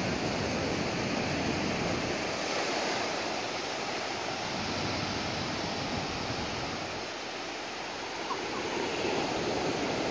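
Surf breaking and washing up the beach in a steady rush of small waves.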